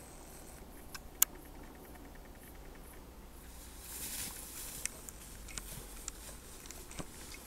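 Faint rustling of tall grass as a red deer hind brushes past close by, loudest about four seconds in. Scattered short clicks come through it, with one sharp click about a second in.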